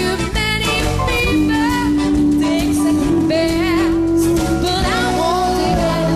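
Background music: a song with a singer holding and bending notes over a band backing.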